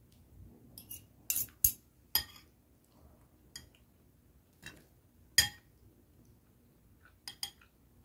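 Metal fork clinking against a dish while eating: a string of sharp, separate clinks at irregular intervals, the loudest about a second and a half in and again just past five seconds.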